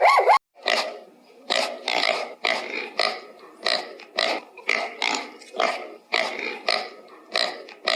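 A pig grunting over and over in an even rhythm, about two short grunts a second.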